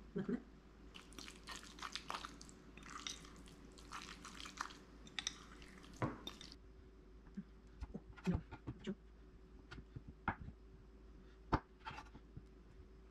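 Fork stirring canned tuna with mayonnaise and sriracha in a ceramic bowl: wet squishing and scraping for about the first six seconds. After that come a few separate sharp knocks, with knife strokes on a wooden cutting board near the end.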